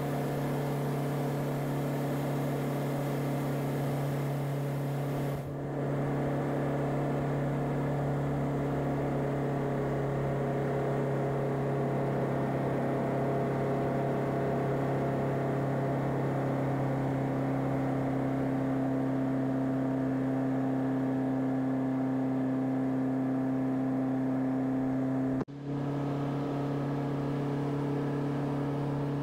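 A Van's RV-7A's piston engine and propeller droning steadily, heard from inside the cockpit in flight. The drone dips briefly about five seconds in and drops out for a split second near the end.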